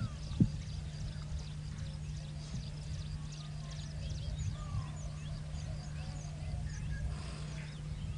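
Many birds chirping and calling, short high notes and a few longer whistled calls, over a steady low hum. A single sharp knock comes about half a second in.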